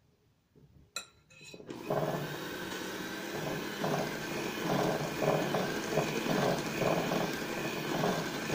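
Handheld electric mixer starting about a second in, then running steadily as its beaters work dry flour-and-cocoa mix into chocolate cake batter in a glass bowl, with a regular pulsing about twice a second as the beaters move through the mix.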